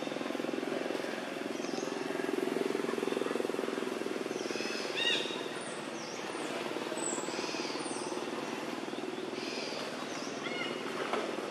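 Outdoor ambience: a steady low drone with scattered short, high chirps and whistles over it, a cluster about halfway through and another near the end.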